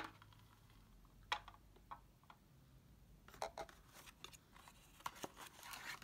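Faint handling of cardboard packaging: a sharp click at the start, a few light taps, then a run of clicks and a sliding rustle of card near the end as a paper sleeve is opened.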